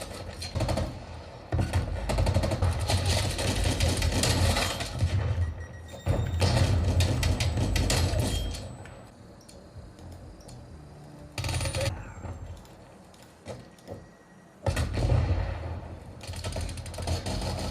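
Multiplayer first-person shooter game audio: loud passages of effects with a heavy low end, dropping quieter from about nine seconds in and coming back loud near the end.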